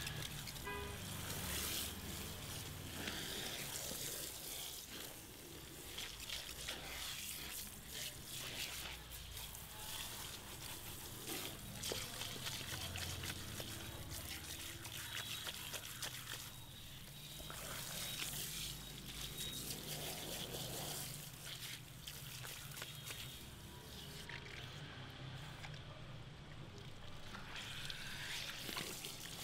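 Water from a handheld shower head spraying onto wet hair and splashing into a shampoo basin as the hair is rinsed.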